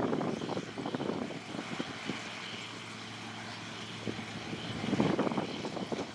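Sugarcane harvester working: a steady engine drone under dense crackling of cane being cut and chopped. The crackling eases in the middle and picks up again about five seconds in.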